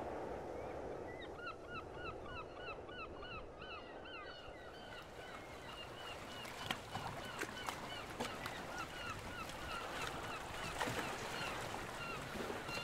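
A flock of birds calling in quick succession, short honking calls several a second for a few seconds, then scattered light clicks and ticks over a faint steady rushing background.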